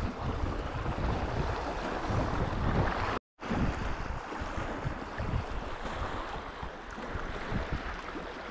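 Rushing water of a shallow river riffle around a kayak, with wind buffeting the microphone in low gusts. The sound cuts out completely for a moment about three seconds in.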